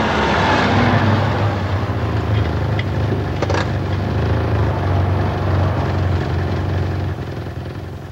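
Car engine running, a sound-effect recording: a steady low hum that fades away near the end, with one short click about three and a half seconds in.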